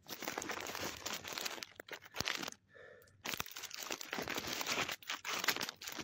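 Loud crinkling and scraping of a phone's microphone rubbing against cloth and brush as the phone is handled. It comes in two long stretches with a short break about two and a half seconds in.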